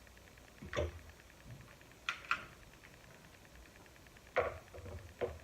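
Snow crab shell being cracked and snapped open by hand: about five short, sharp cracks and clicks, spaced irregularly.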